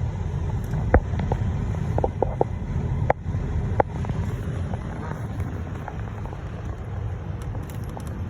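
Steady low outdoor rumble, with a handful of short sharp clicks in the first four seconds.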